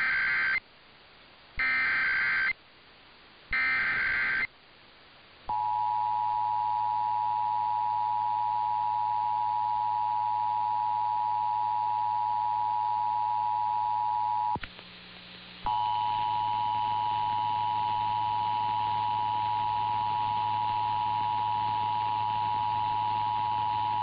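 Emergency Alert System test heard over AM radio: three short bursts of warbling data tones (the SAME header), then the two-tone attention signal, a steady dual-pitched tone that drops out for about a second midway and comes back. A low hum sits under the tone.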